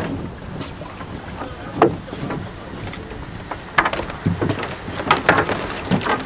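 Irregular knocks and splashes from a rowing boat and its oars as the crew brings them in, with wind blowing on the microphone.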